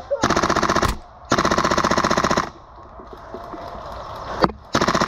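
Full-auto bursts from an HPA-powered Tokyo Marui MP7 gas-blowback airsoft gun, rapid evenly spaced shots: a short burst, then a longer one of about a second, and another starting near the end. A single sharp click comes just before the last burst.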